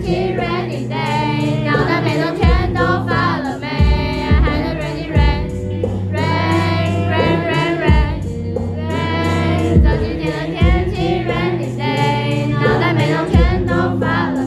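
A man singing into a microphone in a high voice with vibrato, accompanied by electric guitar, performed live.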